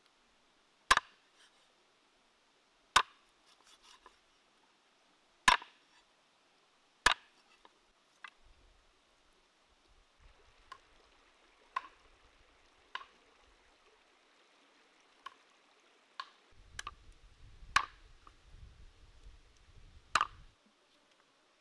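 A cleaver chopping through raw chicken onto a wooden board: about a dozen sharp chops at irregular intervals, a second or two apart, the heaviest in the first half.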